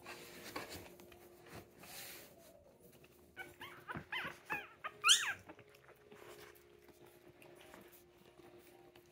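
Two-week-old puppy squeaking and crying: a quick string of about six short, high cries that fall in pitch, the last one the loudest. Soft rustling on the blanket comes before them.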